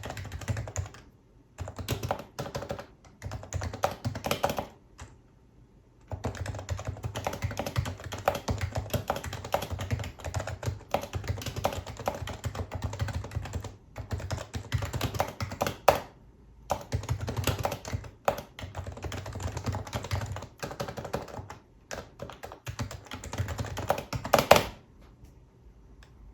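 Typing on a Happy Hacking Keyboard Professional HYBRID Type-S, its electrostatic capacitive (Topre) keys giving soft, muffled clacks in fast runs broken by short pauses. A single louder stroke comes near the end, then the typing stops.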